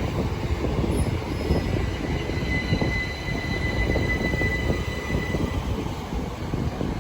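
Class 375 Electrostar electric multiple unit rumbling into the platform and braking, with a thin high squeal from the brakes or wheels for a few seconds in the middle.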